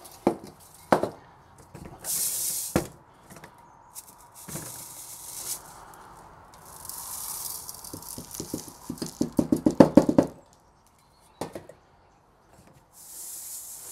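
Dry sand shaken through a stack of metal test sieves: bursts of hissing as the grains run over the mesh, and metal clinks as the sieves are lifted, set down and restacked. A quick run of taps comes about nine to ten seconds in.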